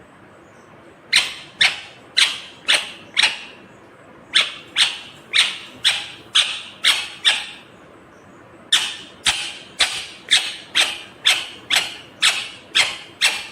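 Indian ringneck parakeet giving repeated sharp calls, about two a second, in three runs broken by short pauses.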